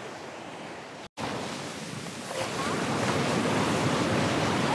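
Ocean surf washing onto a sandy beach, a steady rushing wash. It cuts out for an instant about a second in, then comes back and grows louder.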